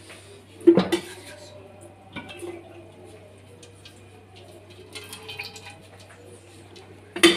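Cookware clanking around a steel karahi on a gas stove: two loud knocks, about a second in and near the end, and a few lighter knocks between, over a low steady hum.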